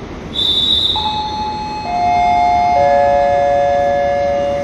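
Railway station public-address chime: three descending notes, about a second apart, each ringing on under the next. It comes just after a brief high squeal, the kind that marks the start of an announcement.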